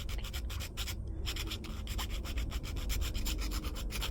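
Hand file scraping back and forth on a 3D printed plastic part in quick, short, even strokes, several a second, rounding off the corners of a slot.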